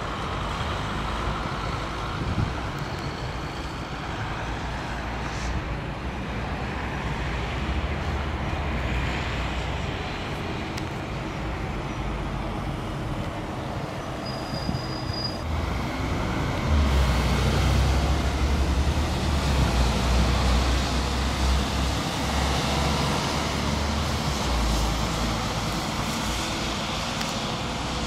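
Steady street traffic with city buses driving past. A bus engine's low rumble swells a little past halfway through and stays loud for several seconds before easing off.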